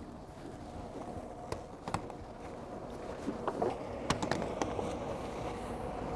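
Scattered knocks and clicks of footsteps and rope handling on a motor yacht's deck, over the low steady hum of the boat's engines idling in gear.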